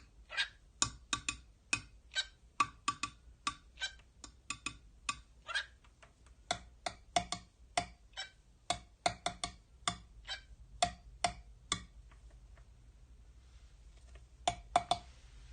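A cockatiel tapping its beak against a hard surface in quick, irregular sharp taps, several a second. They stop about twelve seconds in, with two more taps near the end.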